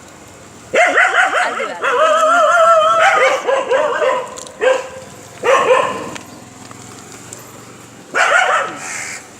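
Stray puppies yelping and whining, several voices overlapping in a long wavering stretch over the first few seconds, then shorter yelps in three bursts later on.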